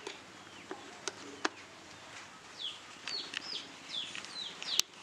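Repeated short, falling bird chirps, with a few sharp clicks as a plug is handled at an extension-cord reel; the loudest click comes near the end.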